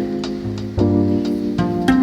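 Background music with plucked strings, and a steady beat.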